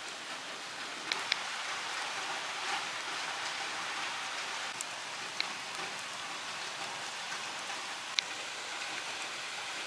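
Steady rain falling, an even hiss with a few faint sharp clicks scattered through it.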